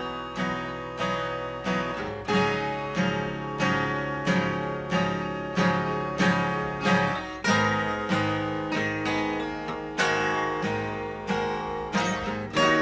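Instrumental music: a guitar strummed in a steady rhythm, about two strokes a second, changing chords about two seconds in and again later, with no singing.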